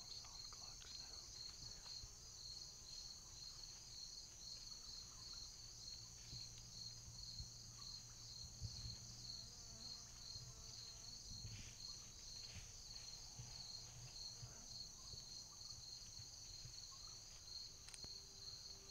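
Faint, steady late-summer insect chorus: a fast, pulsing high-pitched trill in two bands that runs without a break.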